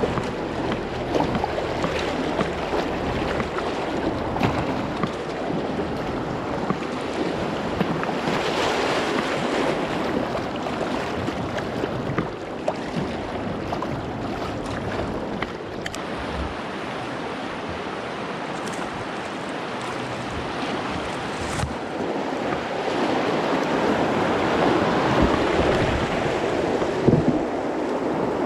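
Rushing river water in a stretch of rapids, a steady wash with small splashes, with wind buffeting the microphone. It grows a little louder in the last third.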